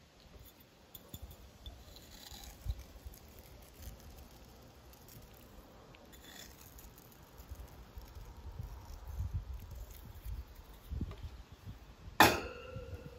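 Quiet handling sounds and light clicks, then one sharp clink near the end that rings briefly, as of a hard metal or glass object being knocked or set down.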